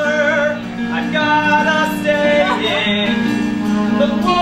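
Musical-theatre number: voices singing long held notes over a steady instrumental accompaniment.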